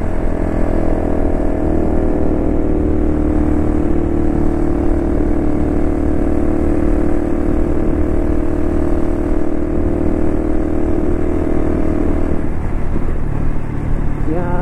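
Customized Honda Cross Cub's 110 cc single-cylinder four-stroke engine running at a steady cruise, with a loud exhaust note and wind rush on the microphone. About twelve seconds in, the engine note drops away as the throttle is eased.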